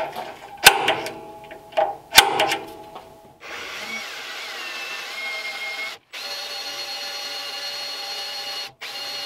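An automatic center punch snapping twice against a broken steel stud, then a power drill starting with a small high-speed steel bit to drill the stud out. The drill runs as a steady whine that shifts in pitch, with two brief breaks.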